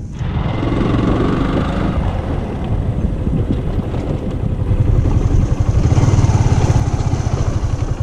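Sport motorcycle's engine running as the bike is ridden along a rough dirt track, its pulsing exhaust note growing louder about five seconds in.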